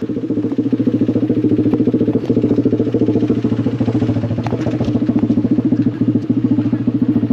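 An engine running steadily at idle with a fast, even pulse; it cuts in suddenly at the start.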